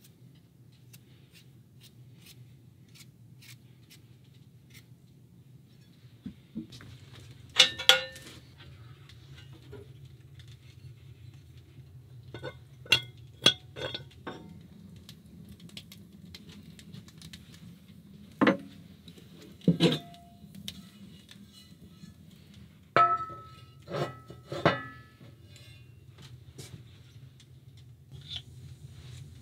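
Faint scraping of a hand peeler on potatoes, then a series of sharp metal clanks and knocks as the hinged cast-iron top of a small wood stove is opened and a cast-iron skillet is set down on it.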